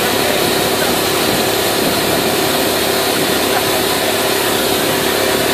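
A loud, steady engine-like noise running evenly, with a constant hum under a wide rushing noise.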